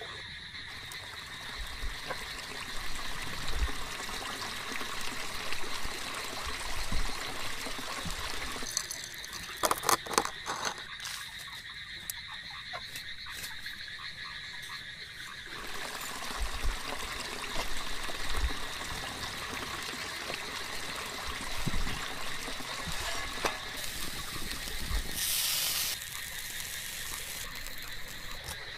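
Frogs calling in a steady background chorus, with a cluster of clicks about ten seconds in and a brief hiss near the end.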